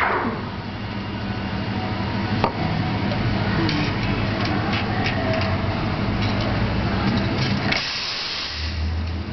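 Espresso machine steam wand cutting off at the end of milk steaming, then light clicks and clinks over a steady low hum, with a sharp knock about two and a half seconds in. Near the end a short burst of steam hiss: the wand being purged after wiping.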